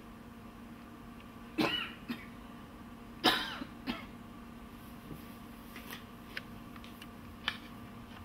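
A person coughing twice, about a second and a half apart, over a steady low hum, with a few faint clicks afterwards.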